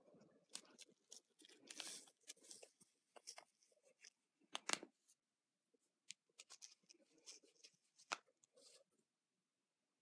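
Small plastic packet crinkling and ball-kit crystals trickling into a plastic mold, with irregular light clicks from handling the mold. The sharpest click comes near the middle.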